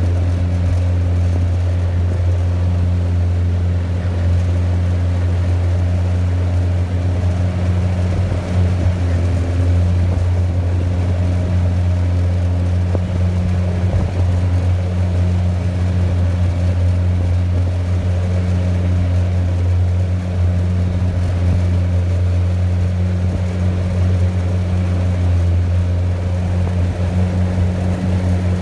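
Yamaha 30 hp two-stroke outboard motor running at a steady cruise, heard from aboard the aluminium boat it drives, a constant low drone with the rush of water under the hull.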